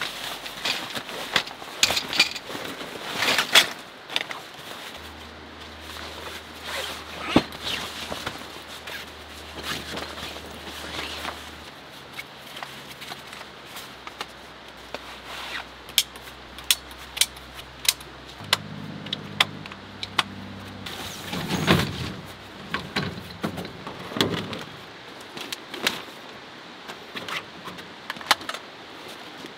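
Helinox camping cot being unpacked and assembled: nylon fabric rustling, with an irregular series of sharp clicks and knocks as the aluminium pole sections and legs are fitted together.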